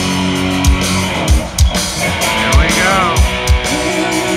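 Live rock band playing on an outdoor stage, heard from the crowd: electric guitar over drums, with a lead line bending in pitch about two-thirds of the way through.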